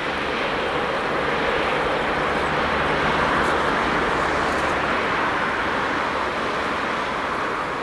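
Boeing 777-300ER's GE90-115B turbofan engines running at taxi power as the airliner turns and rolls slowly past: a steady jet engine noise that swells a little around the middle and eases slightly toward the end.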